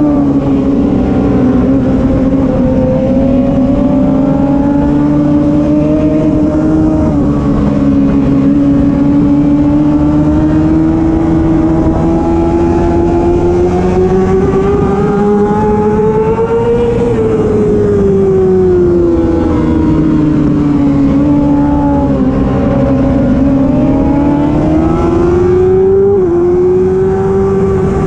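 Racing motorcycle engine running hard at high revs, its pitch climbing slowly, falling away and climbing again, with a sudden brief drop near the end like a gear change.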